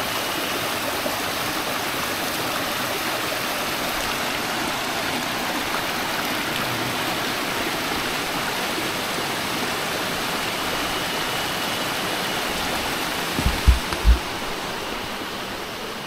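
Mountain stream rushing over mossy rocks: a steady, even rush of water. Near the end a few low thumps, and the water sound then eases a little.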